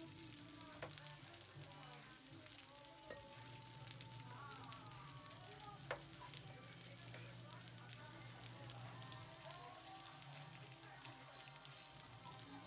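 Fried rice sizzling faintly in a stainless steel wok, a steady fine crackle as it is stirred with a plastic ladle, with a few sharp clicks from the ladle against the pan.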